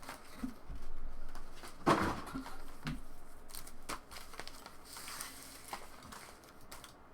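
Trading card pack wrappers crinkling and tearing as packs are opened, with scattered small clicks and rustles of cards being handled. The loudest rustle comes about two seconds in.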